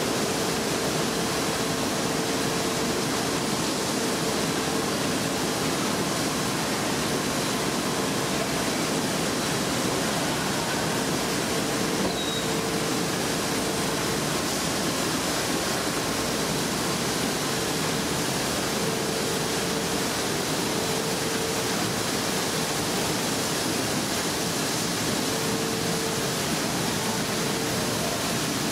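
Steady noise of wool scouring plant machinery running: an even, unchanging hiss with a faint steady hum that drops in and out.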